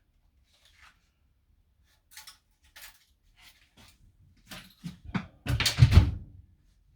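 Scattered light knocks and clatter of things being handled, growing busier and ending in a louder burst of clunks and rattling about two-thirds of the way through.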